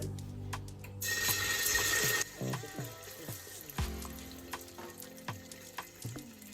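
Kitchen tap running for about a second, then shut off abruptly, followed by scattered knocks and clinks of kitchenware, with background music playing.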